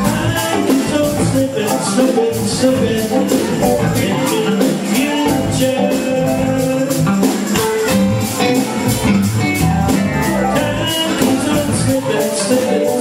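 A live rock band playing: electric guitars, bass guitar, a drum kit and a hand-held tambourine, with a steady beat.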